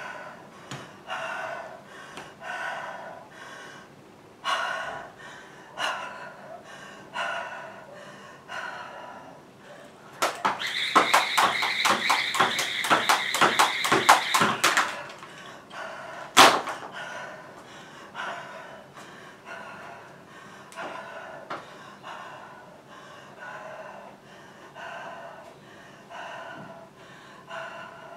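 Jump rope skipping double-unders: the rope slaps the floor in a fast even rhythm, about four times a second, for about four and a half seconds midway. Around it is heavy panting from the workout, and one sharp knock follows shortly after the skipping stops.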